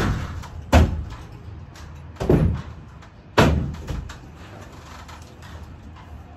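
Four loud bangs in the first three and a half seconds, each with a short ringing decay, then only low background: sheet-metal ductwork being knocked into place overhead by hand.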